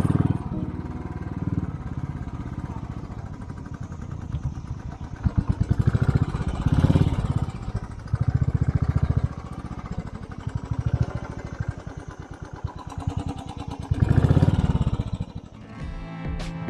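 Motorcycle engine running under load on a rough off-road climb, the revs rising and falling with the throttle, with louder surges a few times.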